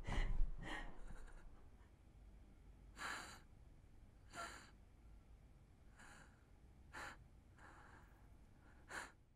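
A woman's unsteady breathing, close by: a handful of short, sharp breaths spaced a second or two apart, over a faint low hum.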